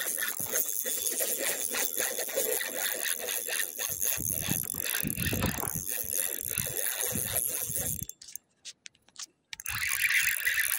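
Tsurinoya Jaguar 2000 spinning reel being cranked on a retrieve: a rapid clicking rattle from the reel's gears and handle. Near the end the sound cuts out almost completely for about a second and a half, then returns.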